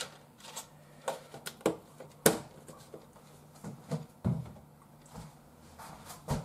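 Kitchen handling noises: a string of separate light knocks and clicks of things being picked up and set down, the sharpest a little over two seconds in.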